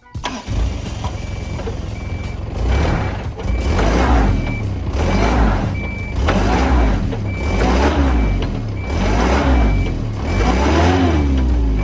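A vehicle's reversing alarm beeping steadily over its engine, which is revved in repeated surges every second or two. The vehicle is trying to back out of mud it is stuck in.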